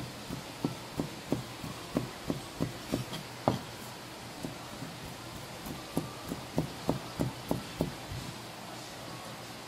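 Kitchen knife chopping strips of raw shark on a plastic cutting board, the blade knocking the board about three times a second. The chopping comes in two runs, with a pause of a couple of seconds in the middle.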